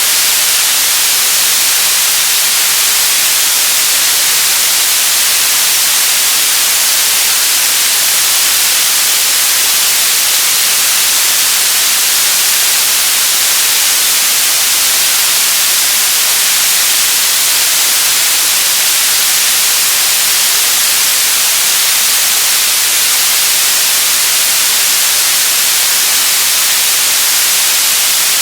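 Television static: steady, loud hiss of an untuned analogue TV, brightest in the upper range and unchanging throughout.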